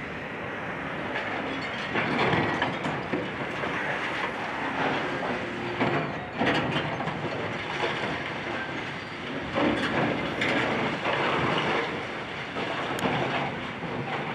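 Building demolition: heavy machinery tearing into an office building, with continuous crunching, scraping and clattering of concrete, glass and metal debris that swells in irregular surges every few seconds.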